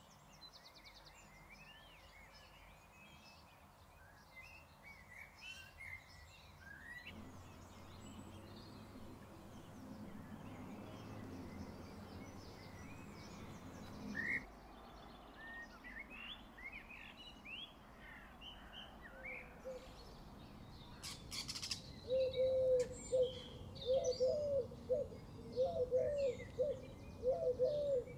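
Outdoor birdsong: small birds chirping and singing over a soft steady background. In the last several seconds a louder, closely repeated series of lower calls, about two a second, takes over.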